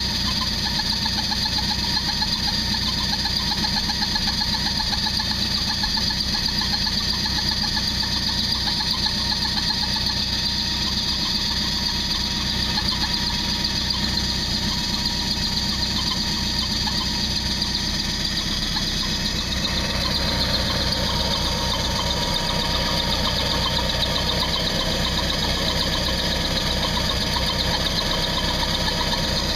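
Volvo Penta 125A four-cylinder marine engine running steadily, heard up close over its belts and pulleys. Its tone shifts slightly about two-thirds of the way through.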